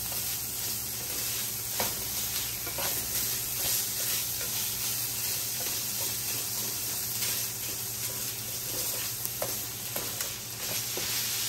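Minced pork and garlic sizzling steadily in a hot pan as they are stir-fried until the pork is cooked through, with occasional scrapes and taps of the stirring utensil against the pan.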